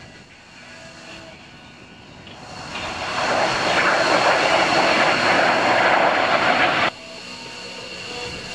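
SOKO G-2 Galeb jet trainers flying past in formation, their Rolls-Royce Viper turbojets swelling to a loud rushing noise as they come close. The noise cuts off abruptly about seven seconds in, leaving a fainter jet sound.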